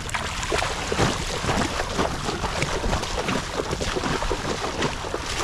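Bare feet splashing and sloshing through shallow pond water while wading quickly: a rapid, uneven run of splashes.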